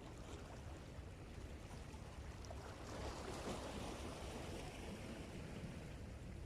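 Sea water washing against the shore, with a steady low rumble of wind on the microphone; the wash swells for a second or two about three seconds in.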